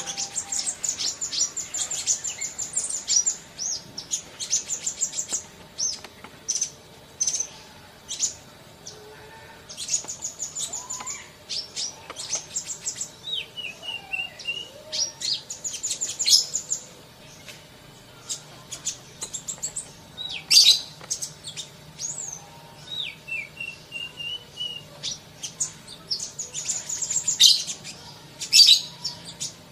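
Sunbird song: fast, high trills of sharp chirps in repeated bursts, with single chips in between and a couple of short, lower whistled phrases.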